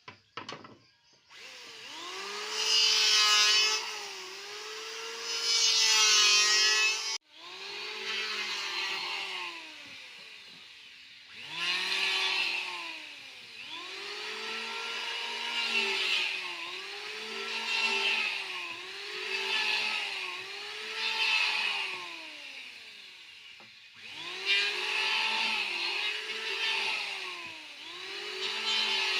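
Electric hand planer shaving wood: the motor's whine dips in pitch as the blade bites into each pass and climbs back as it clears, about every two seconds, with a rasp of shavings over it. The sound breaks off abruptly twice.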